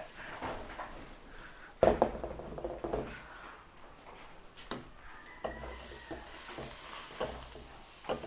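Onion, bell pepper, ginger and mushrooms sizzling in oil in a wok. There is a loud clatter about two seconds in, then a few shorter knocks and scrapes of a wooden spatula against the wok, and the sizzle gets brighter past the middle.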